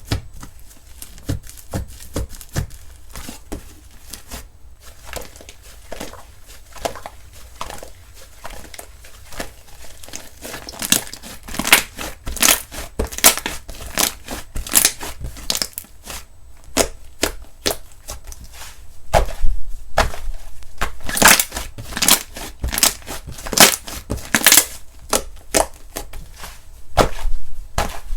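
Slime being squished and pressed by hand, giving quick sticky crackles and pops, sparse at first and growing louder and denser in the second half.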